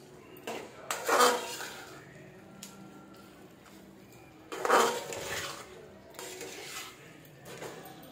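A spoon scraping and knocking against a karahi as chicken and spices are stirred and fried, in a handful of separate strokes, the loudest about five seconds in.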